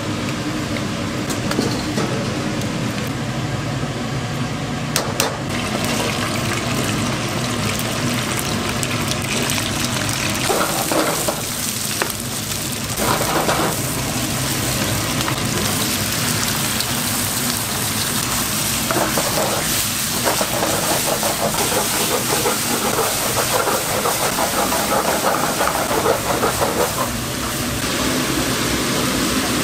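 King oyster mushrooms sizzling as they are stir-fried: a steady hiss that brightens about six seconds in, with scattered clicks over the steady hum of kitchen machinery.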